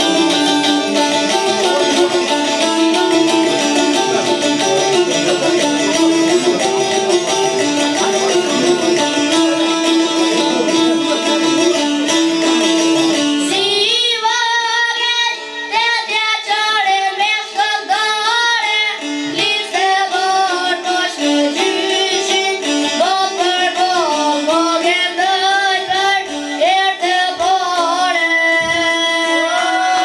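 Albanian folk music on çifteli, long-necked two-string lutes, plucked in a busy instrumental introduction. About halfway through the playing thins out and a high voice comes in singing a long, wavering melody.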